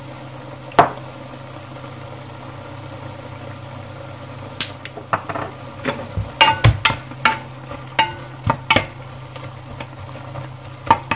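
Onion and carrot sauce simmering in a pan, with a lone click about a second in, a run of sharp clicks and knocks in the middle, some ringing briefly, as it is seasoned with salt and pepper and worked with utensils. A wooden spatula stirs it near the end, over a steady low hum.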